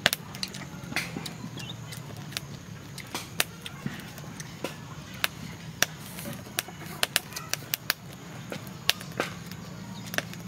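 A person eating stir-fried noodles with chopsticks, close to the microphone: irregular sharp clicks from chewing and slurping, over a steady low hum.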